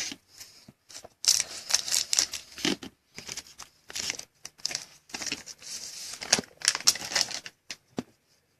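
Trading cards and their packaging being handled: a run of irregular crinkles, scrapes and light slides as cards are flipped and moved against each other.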